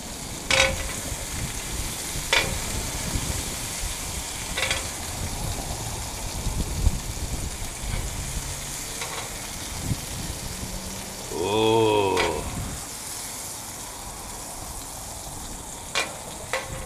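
Thin-sliced cheesesteak meat sizzling on a griddle plate in a gas grill, with sharp clacks of metal tongs now and then as it is turned. A brief vocal sound about twelve seconds in.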